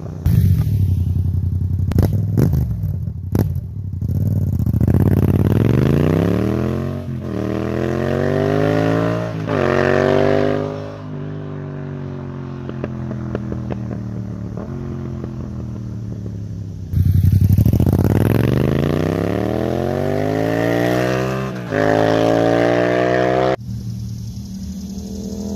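Yamaha MT-07's parallel-twin engine through an Akrapovic titanium/carbon-fibre racing exhaust, accelerating hard in two runs. In each gear the revs climb steeply and then drop at the upshift: three gears in the first run, two in the second. A few sharp cracks come about two to three seconds in.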